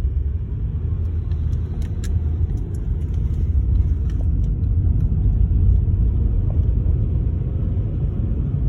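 Car driving on the road, heard from inside the cabin: steady low road and engine rumble.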